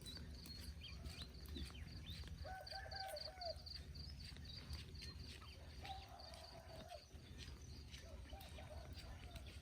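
Faint bird calls: a rapid, high chirping that repeats throughout, and three longer calls of about a second each, over a low rumble.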